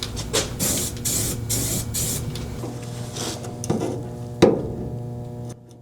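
Metalwork on a steel body patch: several short bursts of harsh hiss in the first couple of seconds, then a few sharp metallic clicks, the loudest about four seconds in, over a steady electrical hum.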